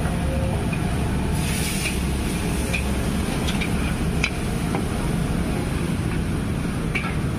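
Wok cooking over a gas burner: a steady low rush from the burner under the hiss of liquid sizzling in the hot wok, with a louder burst of sizzle about a second and a half in. The metal spatula scrapes and clinks against the steel wok a few times.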